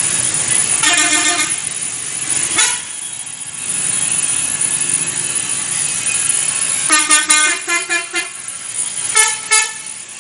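Bus telolet horn, a musical multi-tone air horn: one short blast about a second in, then a quick run of short notes from about seven seconds and two more near the end, over steady road traffic.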